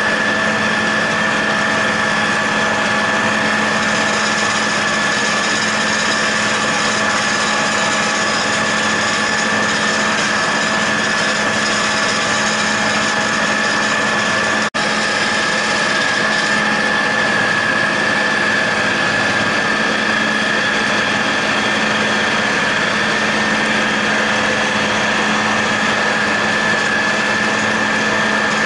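John Deere 8100 tractor's six-cylinder diesel pulling a John Deere 946 MoCo discbine mower-conditioner as it cuts hay: a steady engine drone with a high, even whine over it. The sound breaks off for an instant about halfway through.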